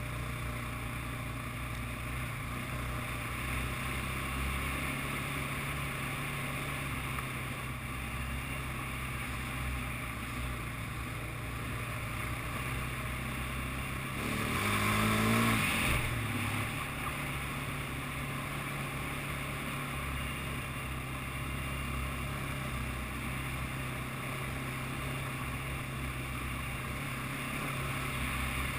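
ATV engine running steadily while riding a trail, with wind on the microphone. About halfway through the engine note rises and gets louder for a couple of seconds, then drops back.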